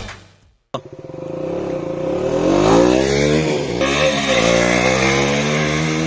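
KTM Duke motorcycle's single-cylinder engine coming in abruptly under a second in and being revved, its pitch rising and falling through the middle before holding steadier.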